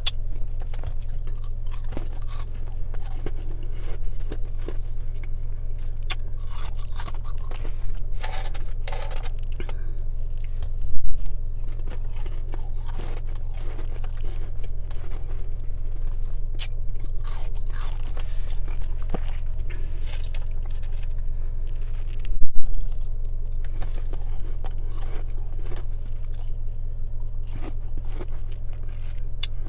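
Close-up crunching and chewing of a mix of freezer frost and humidifier frost, bitten and chewed over and over. A steady low hum runs underneath, and twice a much louder burst stands out, about 11 and 22 seconds in.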